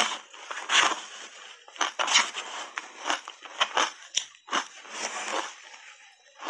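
Shaved ice coated in matcha powder being chewed close to the microphone: a rapid, irregular run of crisp crunches, about two or three a second.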